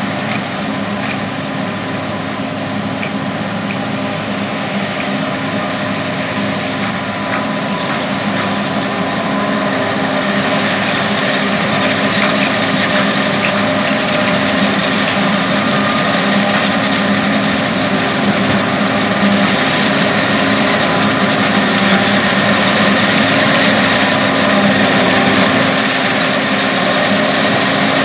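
Steady running of a John Deere 8245R tractor's Final Tier 4 six-cylinder diesel under load, pulling a forage wagon, mixed with the hum of a forage harvester chopping corn and blowing silage alongside. The sound grows louder as the machines draw closer.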